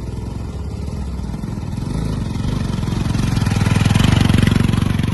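Motorcycle engine running, its pulsing note building in loudness to a peak about four seconds in, then easing off slightly.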